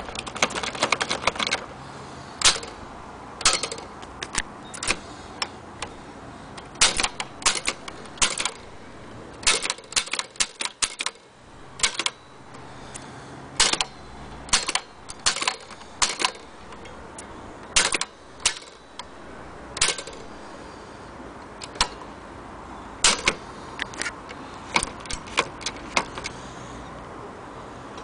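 Antique Corona typewriter being typed on: sharp key strikes come irregularly in short quick runs, with pauses between them.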